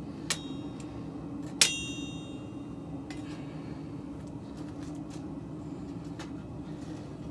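Two sharp metal-on-metal clinks, the second louder and ringing on briefly, about a second and a half apart, followed by a few faint clicks over a steady low hum.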